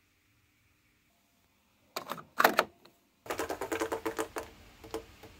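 Fingers tapping the Yamaha DX7's front-panel membrane buttons to select a voice: a few sharp clicks about two seconds in, then a quick clattering run of taps.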